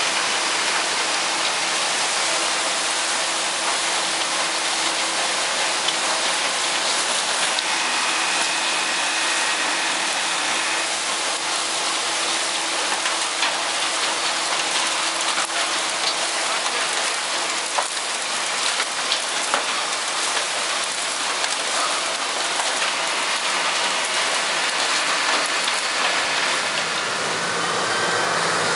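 Wood chips pouring from an overhead chute into a chip truck's trailer, a dense, steady hiss of falling chips. Near the end a Caterpillar wheel loader's diesel engine is heard running.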